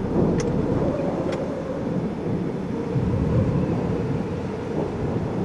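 Strong storm wind blowing across the microphone: a steady low rumbling rush. Two short high bird chirps sound about half a second and a second and a half in.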